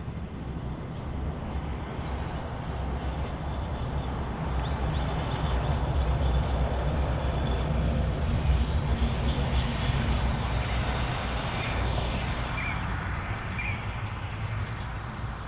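A motor engine running with a steady low hum that grows louder to a peak about halfway through, then fades away.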